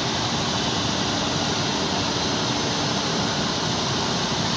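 Steady, even noise of heavy construction machinery running, with a faint steady hum underneath.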